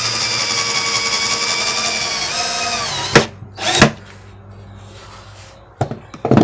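Cordless drill-driver running steadily as it drives a wood screw into a wooden board; the motor's pitch sags slightly as the screw seats, and it stops about three seconds in. Two sharp knocks follow, and two more near the end.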